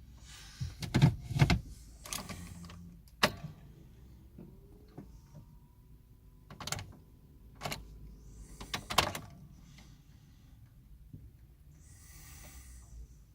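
Mercedes A160 ignition key being turned for a start that does not come: a string of sharp clicks and knocks at irregular spacing, with no engine cranking or running. A faint thin whine sounds through the middle of the string, and a brief hiss comes near the end.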